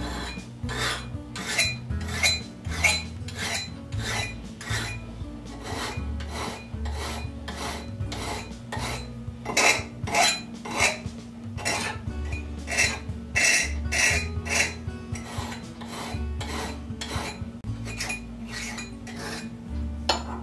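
Hand file rasping back and forth on steel held in a vise, working a chiseled slot at about two strokes a second. Background music plays underneath.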